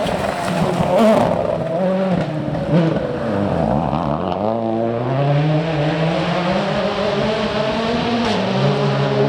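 Rally car engine revving hard on a stage. Its pitch sweeps down and up through the first half, then climbs and holds a high, steady note.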